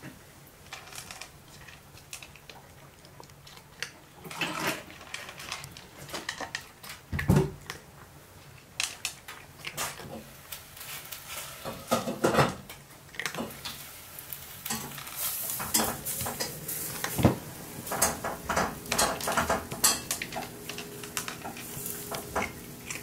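A cat eating dry kibble from a plastic feeder bowl: irregular crunching and small clicks of kibble against the hard plastic, with a few louder knocks.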